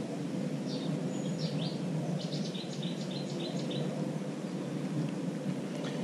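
Small birds chirping, with a quick run of short high notes in the middle, over a steady low rumbling background noise.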